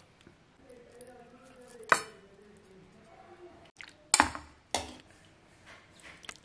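Crockery and serving utensils clinking as food is dished out: three sharp clinks, one about two seconds in and two close together just after four seconds.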